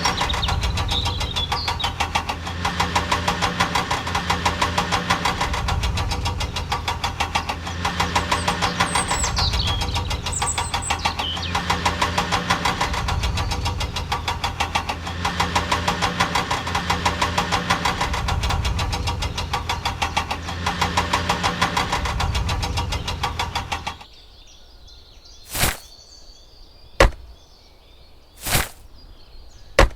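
Tractor engine running with a steady, rapid chugging rhythm, then cutting off about three-quarters of the way through. A few sharp knocks follow, roughly a second and a half apart.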